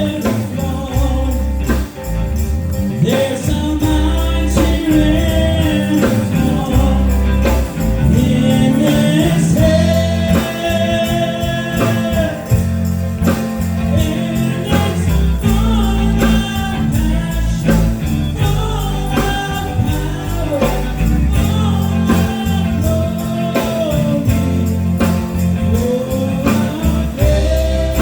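Live gospel band playing at a steady beat, with bass, drums and a jingling tambourine, and a voice singing held, gliding notes over it.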